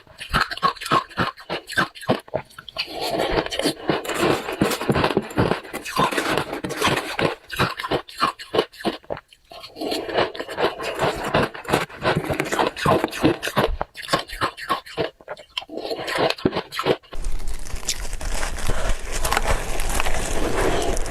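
Ice being bitten and chewed close to the microphone: rapid runs of crisp crunches broken by short pauses. A low hum comes in near the end.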